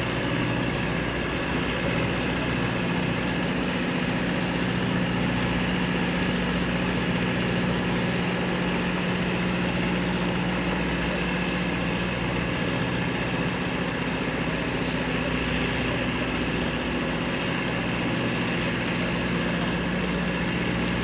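Boeing 929 jetfoil's gas turbine engines running steadily: an even hum with several held tones and no change in pitch.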